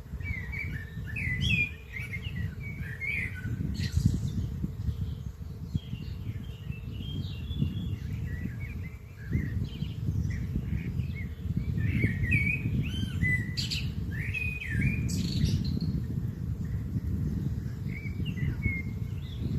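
Songbirds chirping and singing: many short, quick notes, some overlapping, over a constant low rumble.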